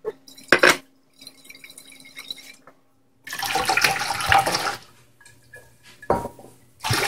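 Watery padaek (fermented fish sauce) poured from a glass bottle into a large metal pot, splashing for about a second and a half midway. There is a sharp knock about half a second in and two more near the end.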